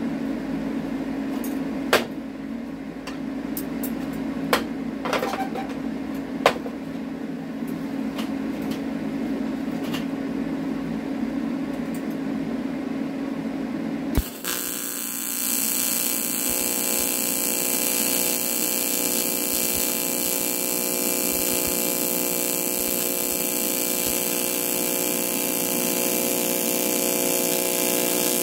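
TIG welding arc on aluminium, struck about halfway through and then held: a continuous buzzing hiss from the AC arc. Before the arc, a steady hum with a few sharp clicks.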